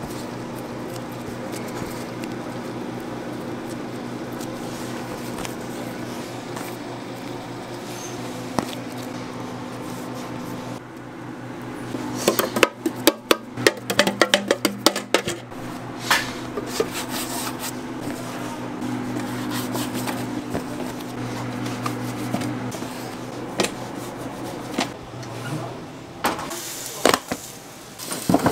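Steady low machine hum with background music, and a burst of rapid clattering and knocking about halfway through, followed by a few scattered knocks, as of bakery work with trays and utensils.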